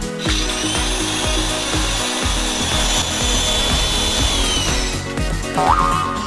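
A power tool running with a high, steady whine and hiss, dropping slightly in pitch as it stops about five seconds in, over background music with a steady beat. A short rising whistle comes near the end.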